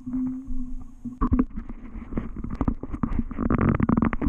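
Handling noise on a GoPro Hero Session's own microphone as the wet camera is grabbed out of the water and held by hand: muffled rumbling and a dense run of knocks and bumps, after a low steady hum in the first second. The knocks grow busier toward the end.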